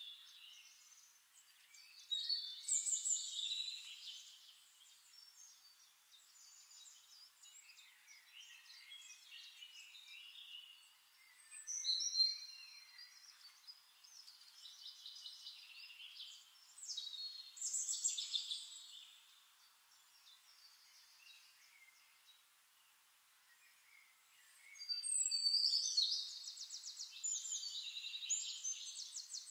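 High-pitched chirping and twittering in irregular bursts, the loudest about two to three seconds in, around twelve and eighteen seconds in, and a longer run near the end, with nothing heard in the low range.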